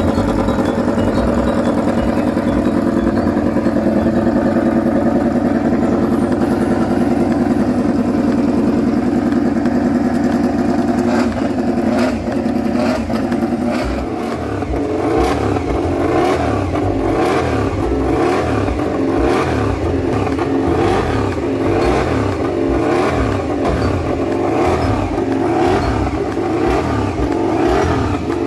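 Racing motorcycle engine running loudly at a steady speed, then from about eleven seconds in revved up and down over and over in short blips, as during pre-race warm-up.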